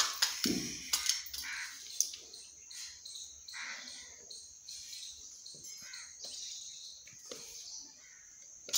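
A peacock's beak clinks a few times on a small steel bowl as it drinks, within the first two seconds, with a short low thud just after the start. Under this runs a steady high-pitched background hiss with faint bird chirps.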